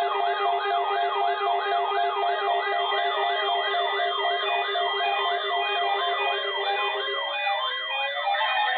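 Electronic siren-like warble tone, one rising-and-falling sweep about three times a second over steady held tones. Near the end the warble fades and falling glides take over.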